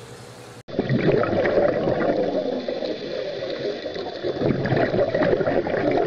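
Water bubbling and gurgling with a busy crackle of small pops, starting suddenly about half a second in after a faint hiss.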